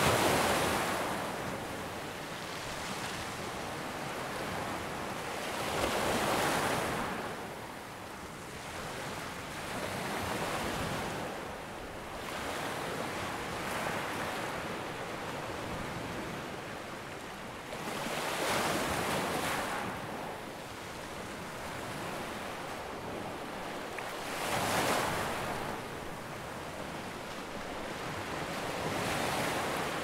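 Ocean surf: waves breaking and washing up a shore. The rush swells and falls back every several seconds.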